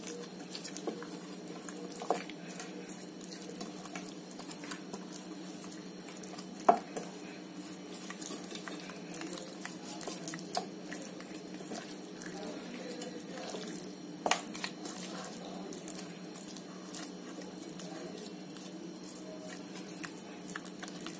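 A hand rubbing wet spice marinade into raw chicken pieces in a bowl: soft squishing and rubbing, with about four light knocks against the bowl, over a steady low hum.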